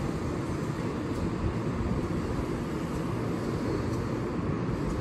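A Keihan 8000 series electric train standing at the platform, idling with a steady low rumble.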